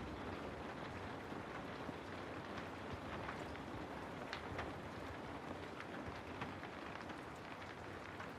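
Steady rain falling on a forest, with a constant hiss and many separate drops ticking and pattering through it.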